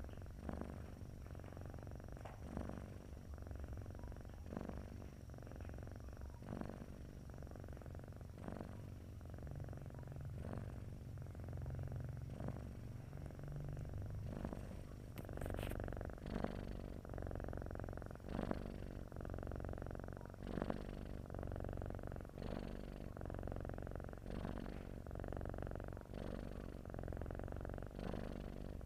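Sleeping domestic cat purring steadily, the purr swelling with each breath about every two seconds.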